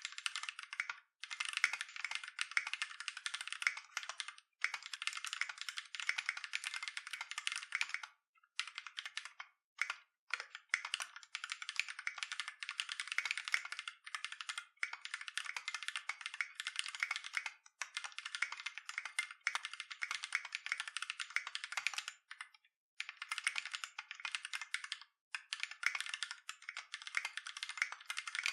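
Steady, fast typing on a custom mechanical keyboard with Holy GSUS tactile switches and Tai Hao Avatar keycaps: a dense run of crisp key clacks, broken by a few short pauses.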